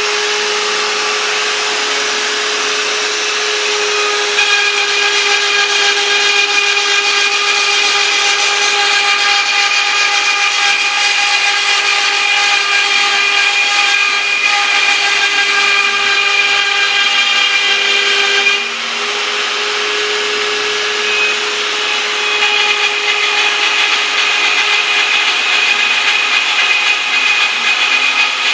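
CNC router spindle running with a steady whine while its bit mills lettering, over a rough cutting noise. About two-thirds of the way through the level dips briefly, then the whine and cutting carry on.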